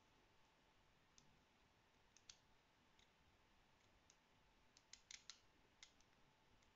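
Faint, irregular clicks of a Curta mechanical calculator's setting sliders being pushed notch by notch with a thumb, with a quick run of clicks about five seconds in.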